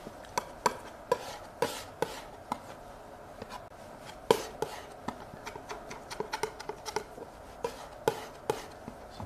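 Metal palette knife tapping and scraping oil paint onto a canvas: irregular sharp ticks with a slight ring, a few a second, one loudest tick near the middle.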